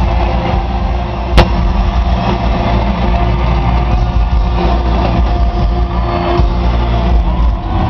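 Live gospel band music played loud over a PA system, with a boomy, overloaded low end. A single sharp click sounds about a second and a half in.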